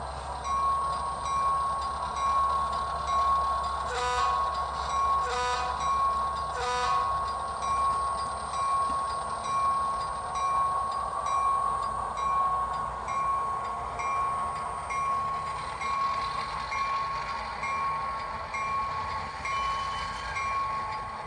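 Simulated diesel prime mover from an ESU HO sound decoder, played through a Bluetooth speaker in a model boxcar, idling down after the train slows, with a steady high whine and a regular light ticking a little under twice a second. Three short sharp sounds come at about four, five and a half and seven seconds in.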